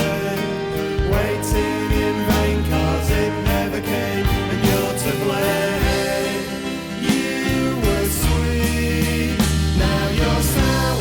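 Band music: a recorded song with a steady bass line, drums and layered pitched instruments.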